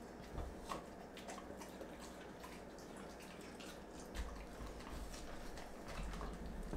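A dog eating ground raw food from a bowl: faint, scattered wet smacks and clicks of licking and chewing.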